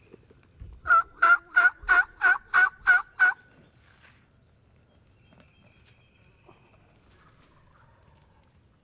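Turkey calling: a loud series of eight evenly spaced hen-turkey yelps, about three a second, then near the end a faint, distant gobble from a tom answering.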